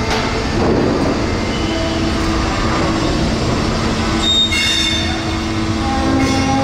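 Freight wagons being shunted slowly along rails with a steady low rumble, their steel wheels squealing on the rails, sharpest about four and a half seconds in and again near the end.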